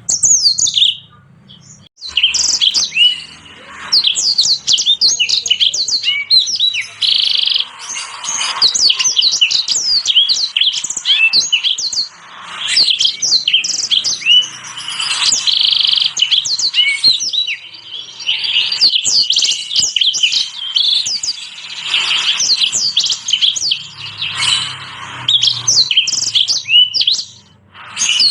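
Small songbirds singing a dense, rapid run of high chirps, trills and whistles, broken by a short pause about a second in.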